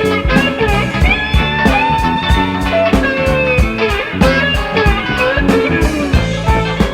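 Blues-rock band music: a lead guitar plays bent, sliding notes over bass and a steady drum beat.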